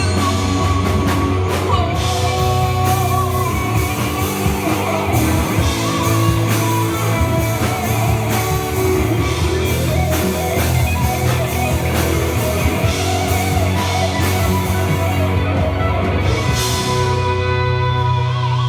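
Malay slow-rock band playing live through a PA: an instrumental break between choruses, with electric guitar over bass and drums. The drums thin out near the end.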